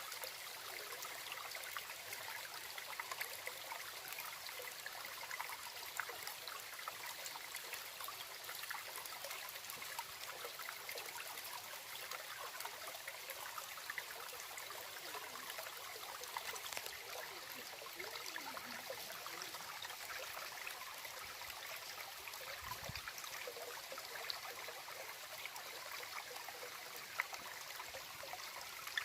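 A small stream trickling and babbling steadily, with many small splashes.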